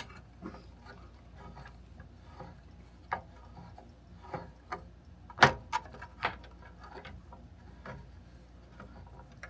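Scattered light metal clicks and knocks from the parts and hand tools of a miter saw being fitted back together during a blade change, the loudest about five and a half seconds in.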